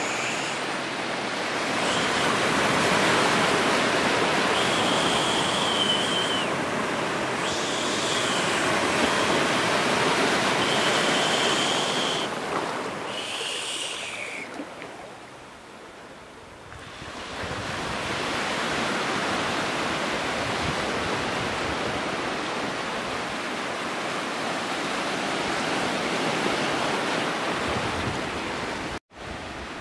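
Sea surf breaking and washing up a beach, a steady rush that swells and eases, dropping away briefly about halfway through. A few short high-pitched sounds come and go over it in the first half.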